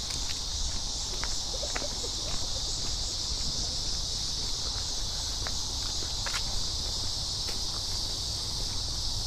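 Steady, high-pitched chorus of late-summer insects buzzing without a break. Footsteps and a few light clicks and rustles are heard under it as someone walks over rough ground.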